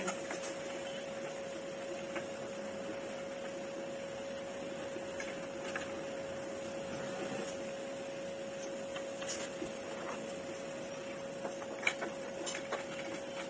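A steady electrical hum holding one constant tone, with a few faint clicks and taps near the end as hardware is worked at the corner of a dining-table frame while a leg is fastened on.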